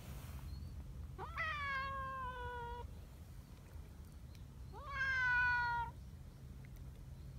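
Two cat meows: a long one just over a second in that jumps up and then slides slowly down in pitch, and a shorter, louder one about five seconds in.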